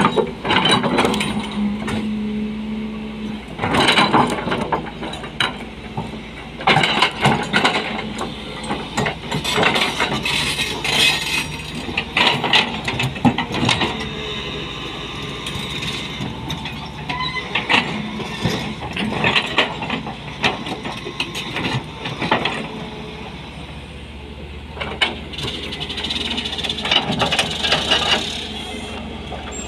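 SANY SY220C hydraulic excavator working rock: its diesel engine runs steadily under load while the steel bucket teeth scrape, knock and crack against quarry stone in repeated clusters of clanks, easing off briefly near three-quarters through.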